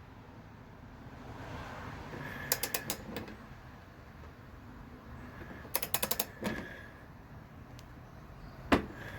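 Click-type torque wrench ratcheting a cylinder head bolt down: two bursts of rapid ratchet clicks, then a single sharp click near the end as the wrench reaches its 12 ft-lb setting.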